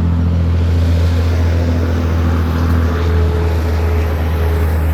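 A motor vehicle engine running steadily with a low, even drone, over a haze of traffic noise.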